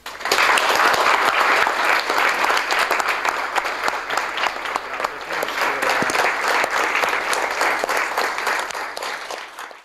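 Audience applauding: dense, even clapping from a roomful of people that starts abruptly in the first half second, eases off slightly toward the end and is cut off.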